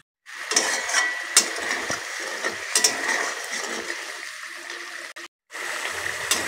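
Thick spiced yogurt masala bubbling hard in a kadai over a raised gas flame, with sharp pops and spits now and then, as its added water boils off. The sound cuts out briefly just after five seconds.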